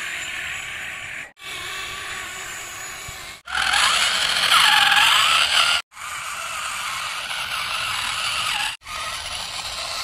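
Small electric gear motors of toy RC vehicles whirring, in short clips that cut off abruptly one after another. The loudest clip, in the middle, has a whine that dips in pitch and rises again.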